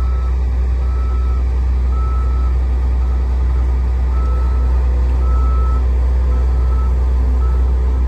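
New Holland TX68 combine's diesel engine running with a steady low drone while it backs up, pushing its header trailer, with a reverse alarm beeping faintly on and off.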